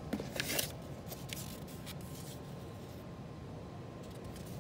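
A paper card rustling and scraping as it is pulled out of a scooter's plastic storage compartment, with a few light clicks. It is loudest in the first second and dies away after about two and a half seconds, over a steady low background rumble.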